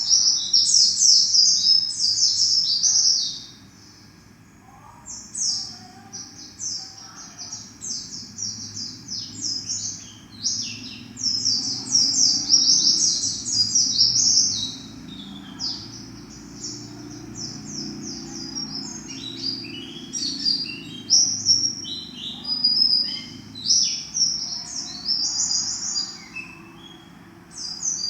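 A pleci (white-eye, Zosterops) singing in long runs of rapid, high twittering notes, with a short break about four seconds in. It is a home-raised bird practising its song.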